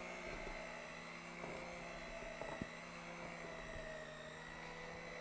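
Electric hand mixer running steadily with a constant motor whine, its beaters working a very thick cake batter in a stainless steel bowl, with a few light ticks.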